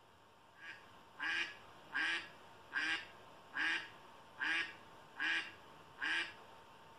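A duck quacking in a steady series: one faint quack, then seven evenly spaced loud quacks, about one every 0.8 seconds. It is a recording played through a laptop speaker.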